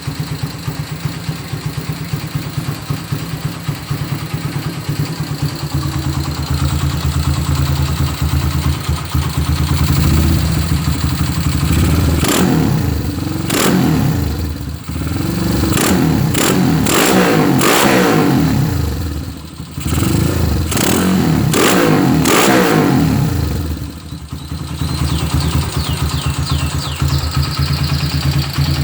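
Honda Megapro motorcycle engine, bored and stroked to 237cc, idling, then revved hard several times in quick succession, its pitch climbing and falling with each blip, before settling back to a steady idle.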